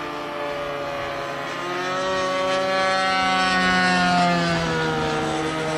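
RC plane's O.S. 1.60 nitro glow engine and propeller running at speed in a dive. The engine note rises and grows louder to a peak about four seconds in, then drops in pitch as the plane passes.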